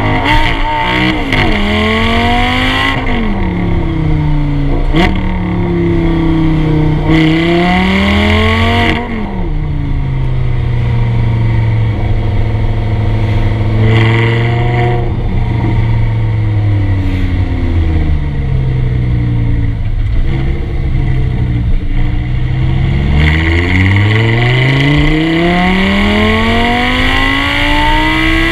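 Audi R8's 5.2-litre V10 heard at the tailpipe: it pulls through rising revs and upshifts twice, the pitch falling at each shift with a sharp crack, then settles for a long stretch at steady revs. Near the end the revs climb again in one long rise, over a constant rush of road and wind noise.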